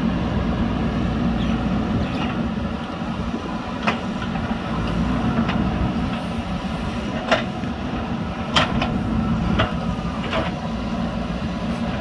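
JCB backhoe loader's diesel engine running steadily under working load, with a few sharp clanks from the machine as it works the soil.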